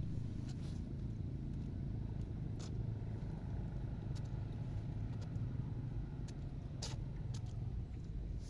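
A steady low rumble with a few light clicks scattered through it.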